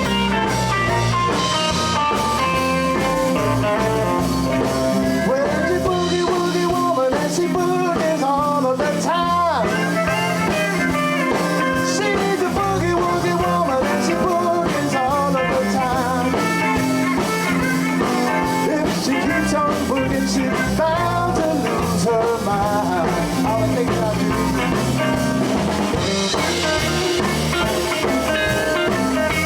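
Live blues band playing an instrumental passage: electric guitar, bass and drums under a lead line with bent, sliding notes.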